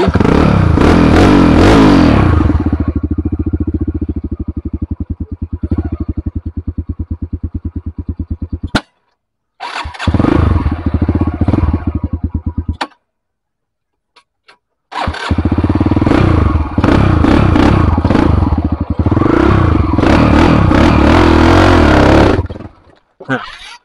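Trail motorcycle engine labouring up a steep dirt climb: it revs, then drops to low revs where each firing beat can be heard. Two abrupt gaps follow, then it revs hard again. The engine lacks power and won't rev on the climb, which the rider suspects is weak ignition spark.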